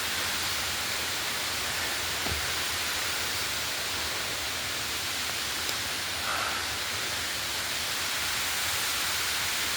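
Waterfall rushing steadily, an even roar of falling water, with a faint low knock about two seconds in.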